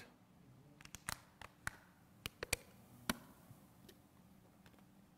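A few faint, sharp clicks and taps, scattered irregularly over a couple of seconds, over a low steady room hum.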